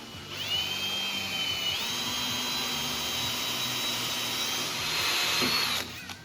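Electric drill boring a 3/16-inch pilot hole in a rusty steel table top: the motor whine starts suddenly, steps up in pitch about a second and a half in, and stops near the end.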